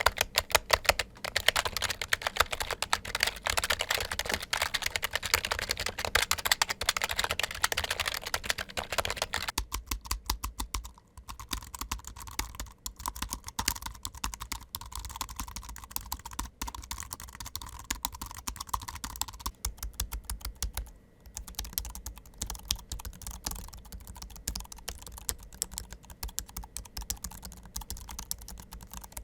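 Fast typing on three keyboards in turn. The first is a DHARMAPOINT Tactical Keyboard with louder, brighter key clacks. About ten seconds in it changes to an Anker Ultra-Compact Bluetooth Keyboard, and about twenty seconds in to a Sanwa Supply 400-SKB062, both with quieter, more muted key taps.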